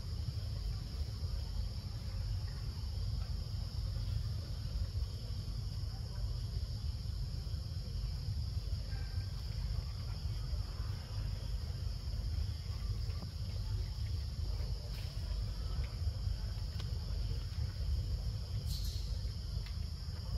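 Steady high-pitched drone of insects, over a constant low rumble and a few faint clicks.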